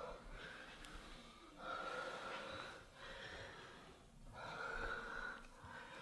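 A person breathing heavily and slowly, long noisy breaths in and out, the stronger ones coming about every two and a half seconds with a faint wheezy whistle in them.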